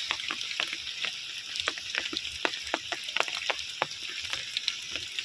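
Rain falling steadily, an even hiss with many scattered drop ticks.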